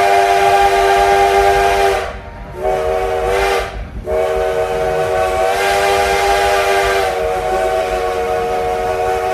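Steam locomotive's chime whistle blowing a chord of several steady notes: a long blast that ends about two seconds in, a short blast, then another long blast starting about four seconds in.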